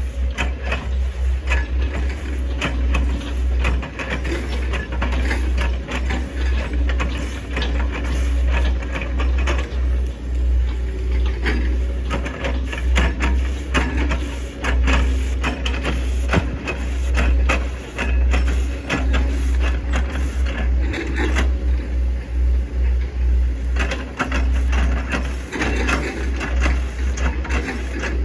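Hitachi ZX110 MF excavator working: a steady low engine drone with many sharp knocks and cracks throughout, from chopping oil palm trunks.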